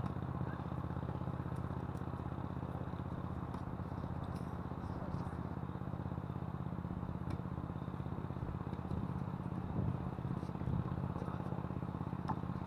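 Steady low rumble of strong wind buffeting an action camera's microphone, with a few faint sharp pops of tennis balls struck by rackets during a rally.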